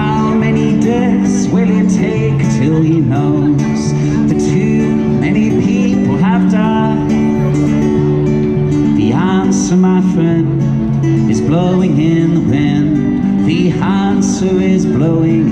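A singer with strummed acoustic guitar: held chords underneath and a gliding sung melody over them.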